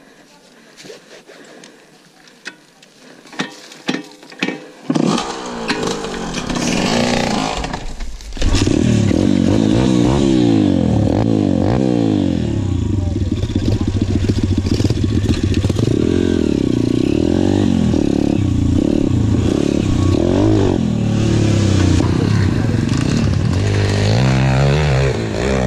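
A few sharp knocks, then a dirt bike engine starts and runs loud from about a third of the way in, its pitch rising and falling with the throttle.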